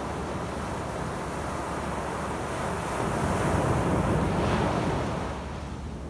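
Surf on a sandy beach: low waves breaking and foam washing up the sand. The wash swells about three seconds in and eases off near the end.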